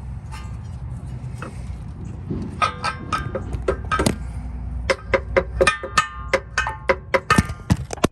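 Repeated hammer blows on a car's CV axle shaft, each strike ringing like metal, starting about two and a half seconds in and coming faster and louder toward the end, about two or three a second: the axle being knocked out of the front wheel hub.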